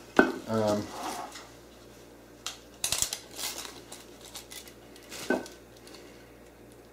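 Handling noise: a few metallic clicks and clinks with rustling as a steel tape measure is drawn out and held against the end of a thick aluminium extrusion, the sharpest click coming about five seconds in.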